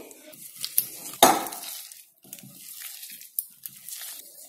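Sliced onion and green capsicum tipped from a ceramic plate into a glass mixing bowl, with a sharp clink of crockery on glass a little over a second in, then softer clicks and rustles as hands toss the vegetables in the bowl.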